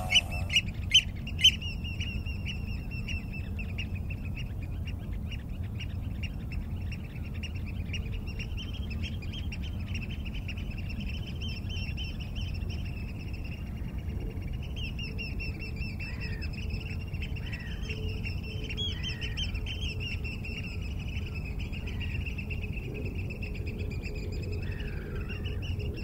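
Tropical rainforest ambience: a continuous high, rapidly pulsing chorus of chirps with bird calls over it and a low steady rumble underneath. A few sharp, loud clicks sound in the first second and a half.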